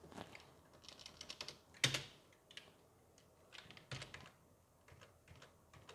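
Computer keyboard being typed on: short clusters of key presses, with one louder keystroke just before two seconds in.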